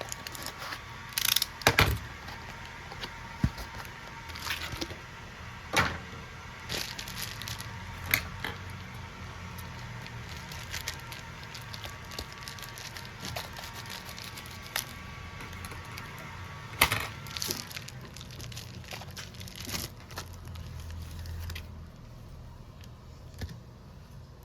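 Irregular clicks, taps and small knocks of hand tools and parts being handled on a smartphone under repair, with a faint steady hum that stops near the end.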